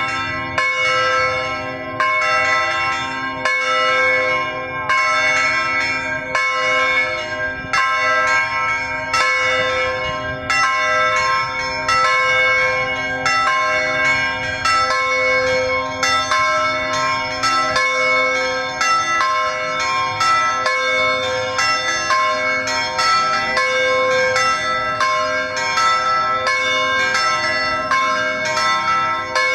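Church bells ringing continuously: a steady stream of strikes, each bell's tone ringing on and overlapping the next.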